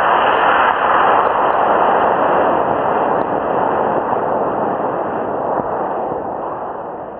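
Model rocket motor firing after liftoff, a loud steady rushing roar that fades slowly as the rocket climbs away.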